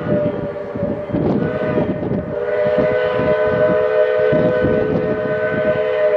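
A narrow-gauge steam locomotive's chime whistle blown in one long, steady chord, a lower note joining about two seconds in. Beneath it the locomotive's exhaust chuffs and the train's running rumble.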